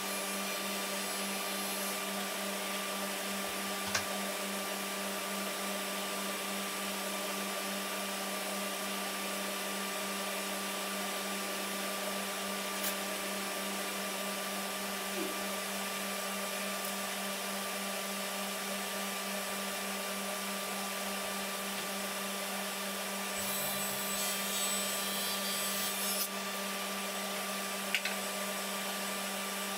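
A small electric motor running steadily, like a power tool or shop vacuum, with a couple of light knocks and a short hiss about three-quarters of the way through.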